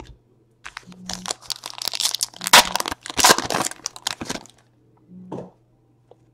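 Foil wrapper of a 2016 Panini Elite Extra Edition baseball card pack being torn open and crinkled: a dense crackling that starts just under a second in, lasts about four seconds and is loudest in the middle. A short rustle follows near the end as the cards come out.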